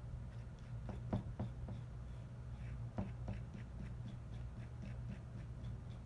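Small repair tools clicking and tapping on a phone: a few sharp clicks about a second in and again near three seconds, then lighter ticks, over a steady low hum.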